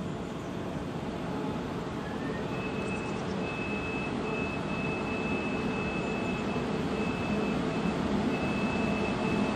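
Electric locomotive hauling a double-deck regional train approaching, its rumble growing steadily louder. A thin, steady high whine joins about a quarter of the way in.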